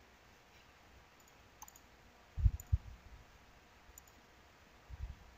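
A few faint computer mouse clicks with short low thumps, a pair about halfway through and another pair near the end, over quiet room tone.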